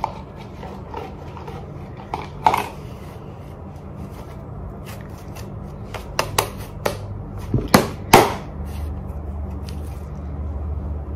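Homemade pink glue-and-activator slime being stirred in a plastic cup, then squeezed and kneaded by hand, with a number of sharp clicks and pops, the loudest about eight seconds in.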